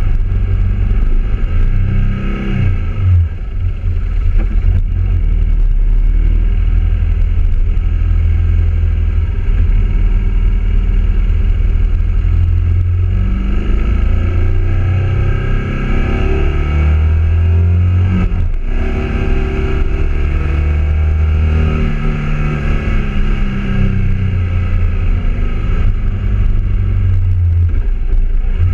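BMW motorcycle engine heard from a camera mounted on the bike while riding, its note rising and falling with throttle and gear changes, with a brief break about eighteen seconds in.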